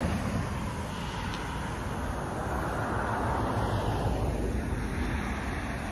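Wind rushing over a phone microphone with road traffic, swelling a little about three seconds in.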